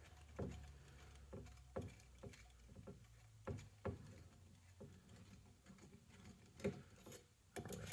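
Faint, scattered clicks and light knocks of small tools and metal parts being handled while the cylinder head screws of a Traxxas 3.3 nitro engine are worked loose.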